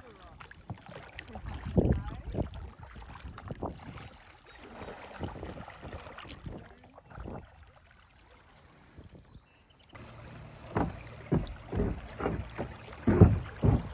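Kayak paddles splashing and dipping in river water, in irregular strokes that come closer together near the end, with wind buffeting the microphone.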